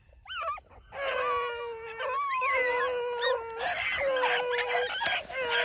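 Beagle pack baying on a rabbit's track: a short yelp, then from about a second in long, overlapping howling bays, one after another.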